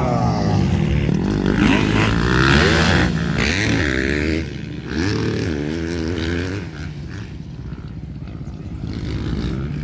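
Motorcycles from a 250 cc grasstrack race running hard, their engine note repeatedly rising and falling with the throttle, a little quieter from about seven seconds in.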